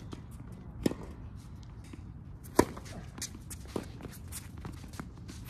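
Tennis rally: two sharp racquet-on-ball hits about two seconds apart, the second louder, with scuffing footsteps on the court between.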